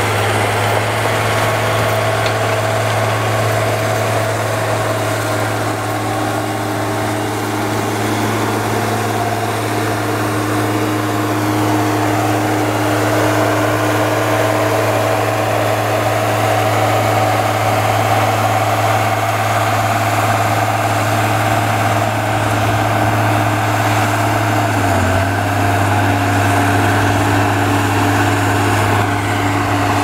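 Komatsu GD505A motor grader's diesel engine running at a steady speed as the grader works a gravel road; its note steps down slightly about 25 seconds in.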